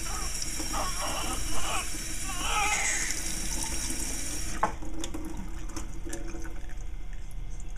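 Sink faucet running with water splashing as a newborn's hair is rinsed; about four and a half seconds in there is a click and the running water stops suddenly.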